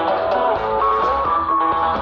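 Live rock band playing an instrumental passage: a lead guitar holding notes and bending between them over the band.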